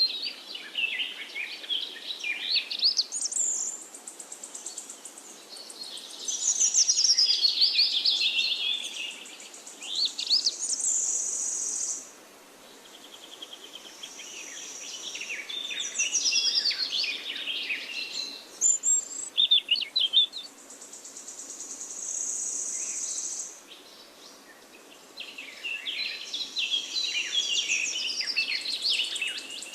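Several songbirds singing in a forest dawn chorus: varied, fast, overlapping phrases that break off and resume every few seconds. A steady high buzz fills several of the gaps between phrases.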